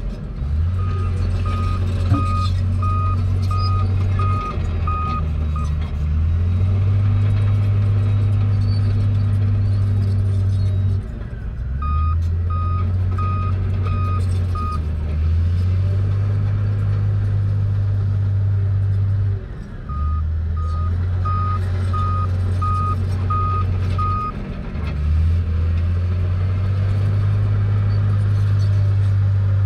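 Komatsu bulldozer's diesel engine running under load, its pitch and level stepping several times as the machine works back and forth. A reversing alarm beeps in three separate runs of several beeps.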